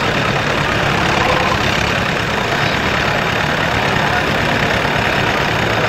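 Diesel tractor engines idling steadily, a dense continuous engine noise with no breaks.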